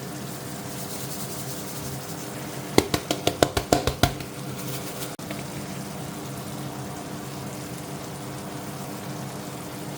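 Chicken frying in a pot with onion and tomato, sizzling steadily. A little under three seconds in comes a quick run of about ten sharp knocks, over in just over a second.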